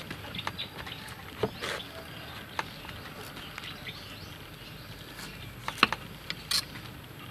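Kitchen knife cutting into a raw head of cabbage on a wooden chopping board: a few separate sharp cracks and knocks as the blade goes through the leaves and meets the board, the loudest a little before six seconds in.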